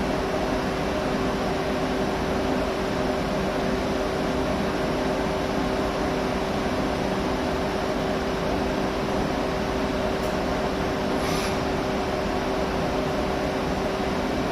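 CNC lathe running under power, a steady machine hum with a constant whining tone and a lower pulsing tone. A brief tick about eleven seconds in.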